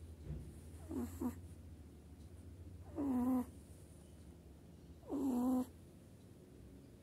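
Nine-week-old kitten snoring in its sleep: a short pitched snore on each breath, three times about two seconds apart.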